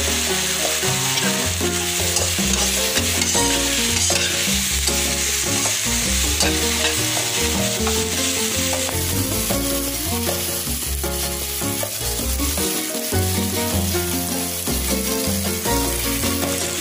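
Tempe strips sizzling in oil and sweet soy sauce in a hot wok while a slotted metal spatula stirs and scrapes them, a steady frying hiss throughout. Background music plays underneath.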